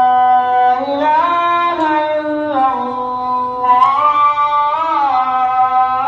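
Music: a female voice singing a slow melody in long held notes that slide from one pitch to the next.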